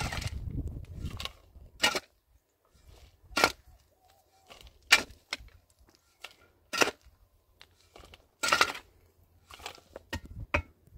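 A rough scraping, rustling noise for the first two seconds, then a slow, uneven series of about seven sharp knocks, one every second or so.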